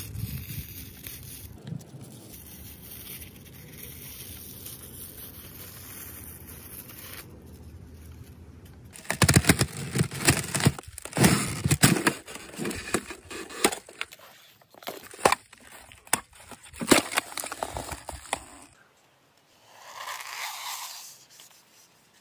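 Thin ice cracking and crunching under footsteps: a run of sharp, loud cracks for about ten seconds in the middle, after a stretch of steady noise.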